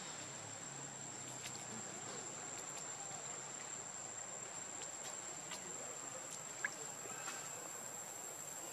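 An insect droning steadily on one constant high-pitched tone, over faint outdoor background noise with a few soft clicks.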